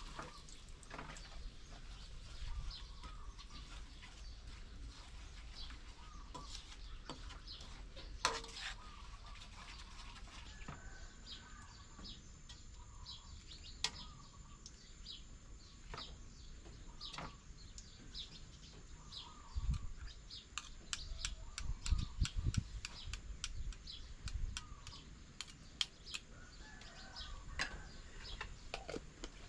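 Outdoor rural ambience of small birds chirping in short, repeated calls, with scattered clicks. A steady high whine comes in about a third of the way through, and a few low thuds follow about two-thirds through.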